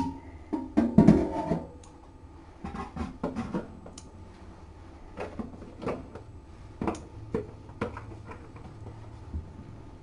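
Small sharp clicks of a nail clipper snipping a kitten's claws, about a dozen spread unevenly through, with soft handling noise between them; a louder jumble of handling about a second in.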